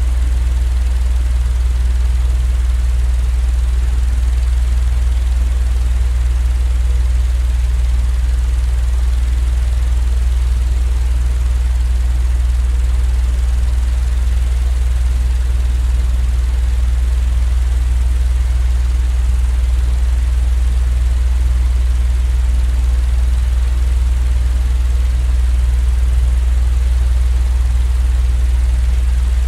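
Steady, unchanging low drone with a light hiss above it, a continuous sleep-aid noise track.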